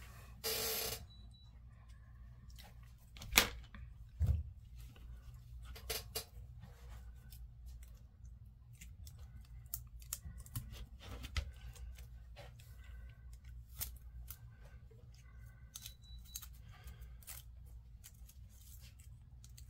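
Amber insulating tape being pulled, folded and pressed around a sound decoder on a model locomotive frame: a short tearing rustle of tape about half a second in, then scattered small clicks, taps and crinkles of fingers on tape and plastic, with one sharper click about three seconds in and a low thump just after.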